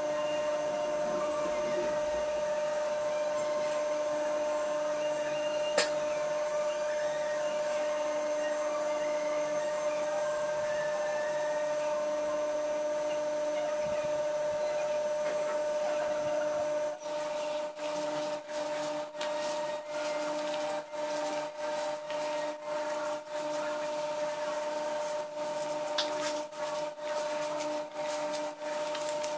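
Steady mechanical hum with a fixed pitch and hiss, broken by one sharp click about six seconds in. From about seventeen seconds on, it is cut by frequent short gaps.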